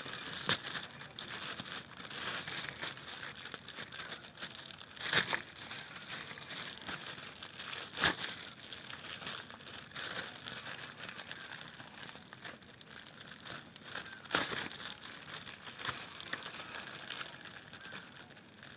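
Plastic shipping pouch and packaging crinkling and rustling as it is handled and pulled open. Sharp, louder crackles come about half a second in, and again around five, eight and fourteen seconds.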